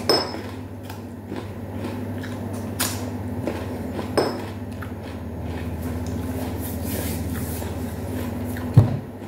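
A man chewing a bite of unripe apricot, with a few sharp clicks and one louder knock near the end, over a steady low hum.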